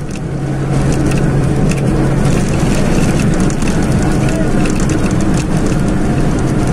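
Bus engine drone and road noise heard inside the passenger cabin, growing louder over the first second and then steady, with scattered light rattles and clicks.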